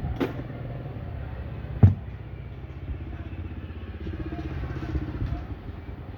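A machine running steadily with a fast low pulse, broken by two sharp knocks: a light one just after the start and a much louder one about two seconds in.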